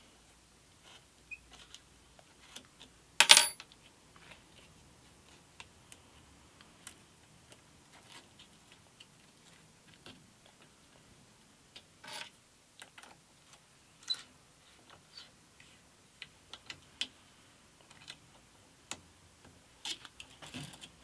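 Scattered light clicks and taps of hands working the sandpaper clamps on a sanding drum, with a loud metallic clatter and short ring about three seconds in, a steel hex key landing on the metal table, and a smaller clink about twelve seconds in.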